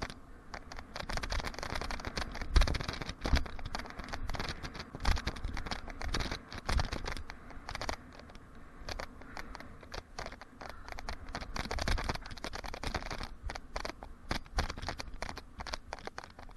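Mountain bike rolling over a packed-dirt trail: tyre noise on the dirt with many small rattles and clicks from the bike and mount, and heavier thumps as it goes over bumps.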